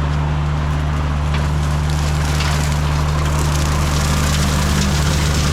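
Compact diesel tractor running steadily under load, driving a rotary brush hog, with crackling and snapping of brush and woody stems being shredded by the blades.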